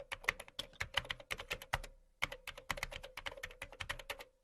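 Typing on a computer keyboard: quick, irregular key clicks, with a brief pause about two seconds in and a faint steady hum underneath.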